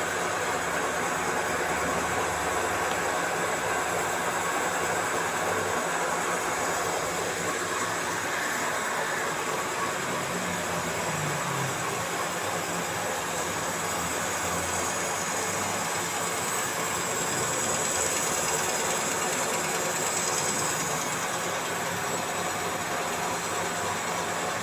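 A machine running steadily, a continuous mechanical noise with a faint high-pitched whine that strengthens a little past the middle.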